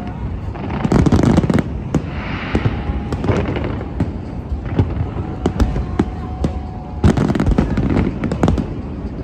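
Aerial fireworks display going off: a dense run of irregular bangs and booms over a continuous low rumble, with a stretch of crackling about two to three seconds in.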